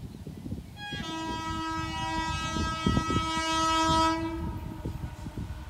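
Air horn of an approaching electric locomotive on an express train, sounding one long chord-like blast of about three and a half seconds that starts about a second in. A low rumble runs underneath.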